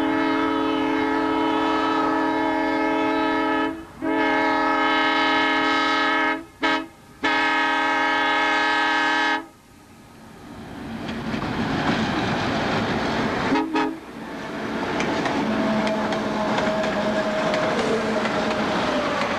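Diesel locomotive air horn sounding the grade-crossing signal: two long blasts, one short and a final long. About halfway through, the EMD diesel locomotives come closer and pass close by, their engines and wheels running loud and steady, with a brief knock partway through.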